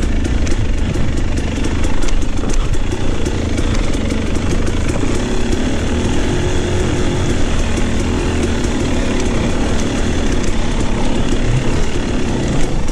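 KTM dirt bike engine running steadily as the bike is ridden along a rough trail, with frequent sharp clicks over it.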